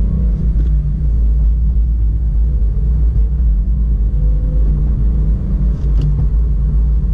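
2017 Subaru WRX being driven, heard from inside the cabin: a steady low engine and road drone from its turbocharged flat-four, with a light click near the end.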